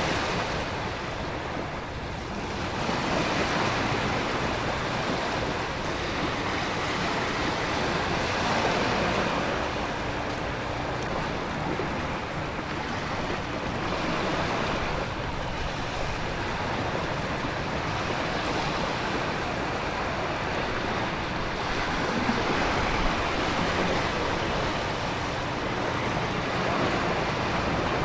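Storm ambience: a continuous wash of heavy rain and ocean surf with wind, swelling and easing every few seconds.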